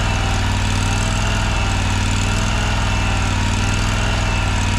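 Toro Z587L zero-turn mower's engine idling steadily.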